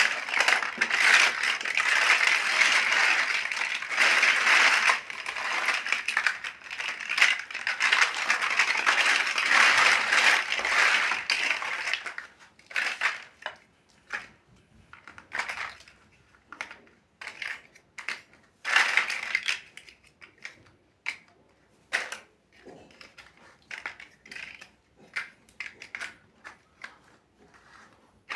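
Plastic building bricks clattering and rattling densely for about twelve seconds, then separate sharp clicks and clacks of single bricks being handled.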